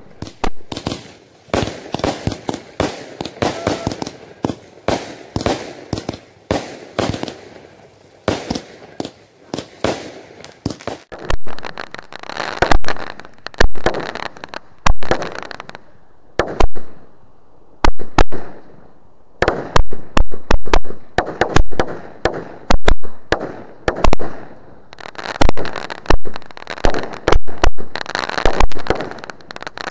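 Consumer firework cakes firing: a fast string of bangs and crackle. About a third of the way in the bangs turn louder and sharper, going on at several a second.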